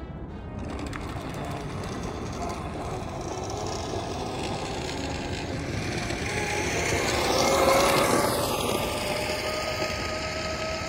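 Electric motor of a motorized kick scooter whining, its pitch sliding up and down, over a rough rasping noise. The sound swells to its loudest about eight seconds in.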